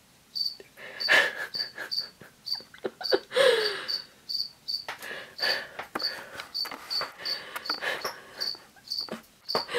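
Cricket chirping steadily, about three short high chirps a second, under louder irregular rustles and breathy noises close to the microphone.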